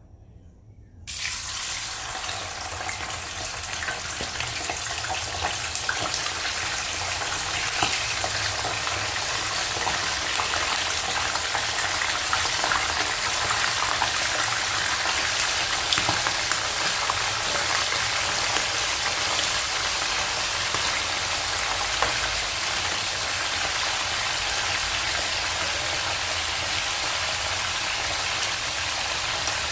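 Food frying in hot oil, starting suddenly about a second in: a dense sizzle full of fine crackles that grows a little louder, then holds steady.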